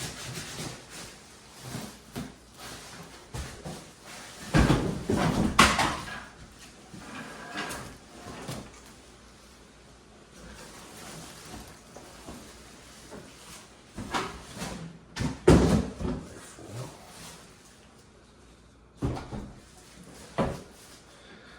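Handling noise from unpacking a tankless water heater: bumps, knocks and rustling of the unit and its box and packing. The loudest clusters come about five seconds in and again about fifteen seconds in, with two single knocks near the end.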